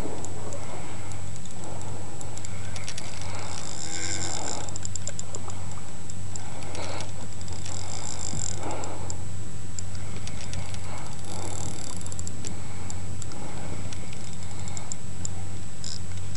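A boat motor running steadily as the boat moves slowly along the creek: an even low hum with a thin high whine and fast fine ticking over it.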